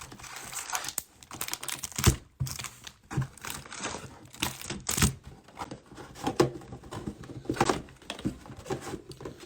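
Plastic shrink-wrap on a sealed trading-card hobby box being torn and crinkled, with irregular clicks and taps as the box is opened and its foil packs are handled.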